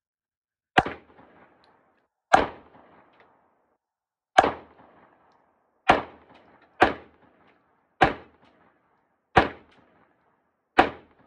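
A string of eight gunshots, one every one to two seconds, each a sharp crack with a short echoing tail, fired by another shooter on the range.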